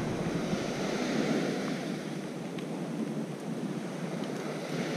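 Surf washing on a rocky shoreline, a steady rushing noise, with some wind on the microphone and a couple of faint clicks.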